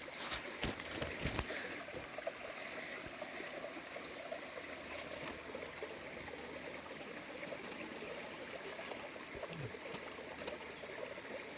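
Steady trickle of a small stream running, with a few sharp clicks and knocks in the first second and a half.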